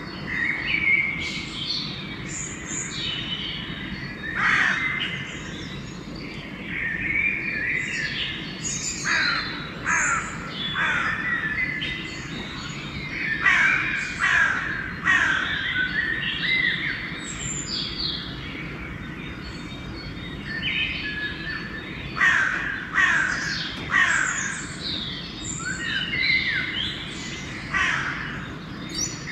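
Dawn chorus of mixed songbirds singing and chirping, with crows cawing in among them. The calls come densely and overlap over a steady low background hum.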